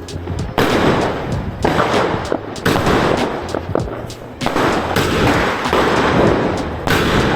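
Firecrackers going off in dense, rapid crackling volleys, with fresh loud surges about every two seconds, over background music.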